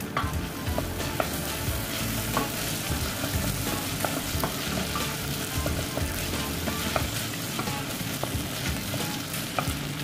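Sliced red onions and chillies sizzling as they sauté in a stainless steel pot, stirred with a wooden spoon that gives occasional light knocks against the pot.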